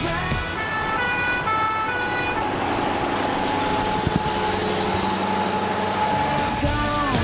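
Scania R560 V8 truck with open exhaust pipes running at highway speed as it passes close alongside, with engine and road noise. A run of horn notes, stepping in pitch, sounds in the first two seconds, and a steady high tone carries on for most of the stretch.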